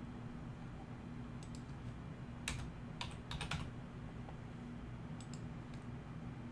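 Computer keyboard typing: a handful of keystrokes in short, irregular clusters as a number is entered, over a steady low hum.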